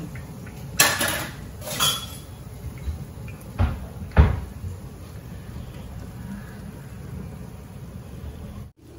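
Two sharp clanks about a second apart, then two dull thumps around four seconds in, over a steady low background.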